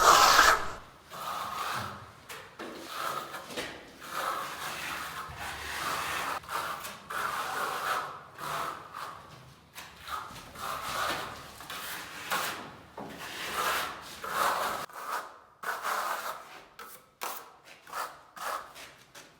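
Steel Venetian trowel scraping marmorino plaster across facade mesh on a wall in repeated criss-cross smoothing strokes. The strokes come irregularly and become shorter and sparser near the end.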